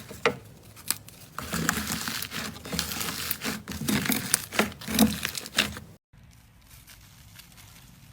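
Slime being handled and squeezed, a dense crackling with many sharp sticky clicks and pops. After about six seconds it cuts off abruptly to a much quieter stretch.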